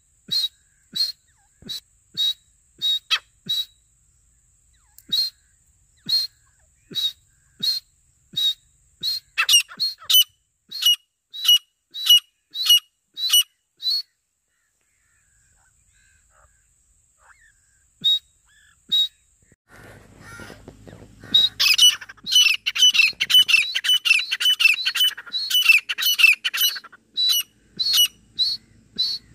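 Grey francolins (teetar) calling: sharp, high notes repeated about twice a second, quickening with extra notes near the middle. After a pause of a few seconds the calling breaks out into a dense, rapid run, then settles back to single notes near the end.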